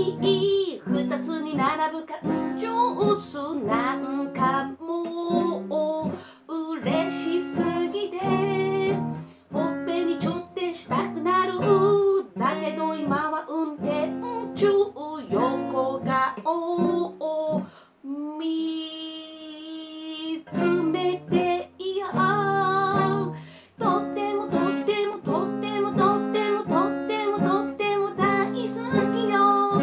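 Steel-string acoustic guitar strummed with a capo, with a woman singing the melody along with it. About two-thirds of the way through the strumming breaks off for a couple of seconds while a long note is held, then resumes.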